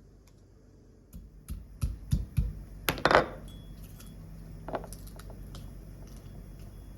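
Kitchen utensils and cookware being handled: a quick run of knocks and clinks, the loudest with a short scrape about three seconds in, then a few light clicks over a steady low hum.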